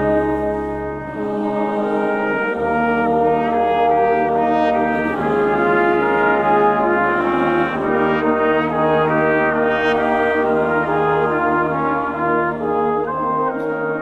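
Brass ensemble of trumpets, trombone and tuba playing a sustained chordal Christmas passage, with a steady deep tuba bass line under held chords that change about once a second.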